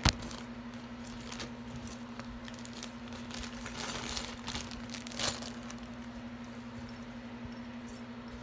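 Sterling silver jewelry being handled on a table: a sharp clink at the start, then scattered light clinks and rustles over a steady low hum.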